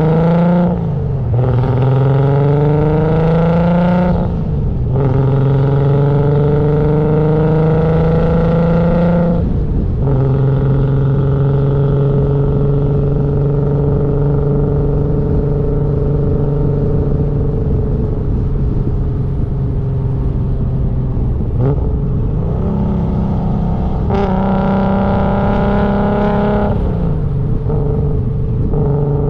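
Toyota Supra's 2JZ straight-six accelerating hard, its note climbing in pitch through the gears and dropping sharply at each upshift, about 4 and 10 seconds in. It then holds a steady cruising drone, pulls up again briefly later on, and drops once more near the end.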